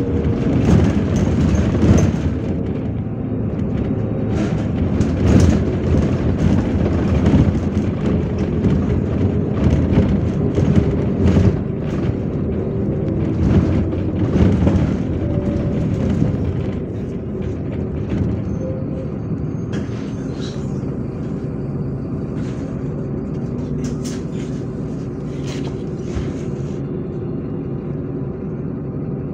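MAZ-103 city bus riding, its engine running with the body rattling and clattering over the road. The clatter and knocks ease about halfway through, leaving a steadier, slightly quieter engine hum.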